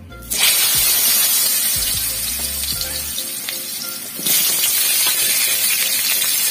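Cut potatoes hitting hot oil in a kadai and frying with a loud sizzle that starts suddenly about half a second in, dips a little, then jumps louder again about four seconds in.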